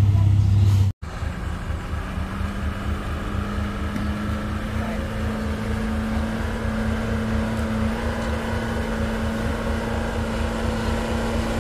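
Heavy trucks' diesel engines droning steadily as they labour up a steep, rough climb. A louder engine hum cuts off sharply about a second in, and a steady drone with a low pulsing beat follows.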